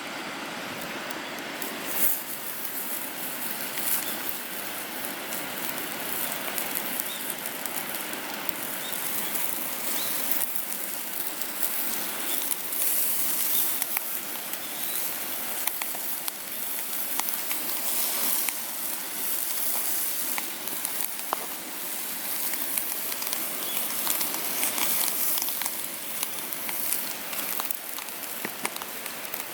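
Wood fire crackling and hissing in a fire-pit stand, with many small sharp pops scattered throughout.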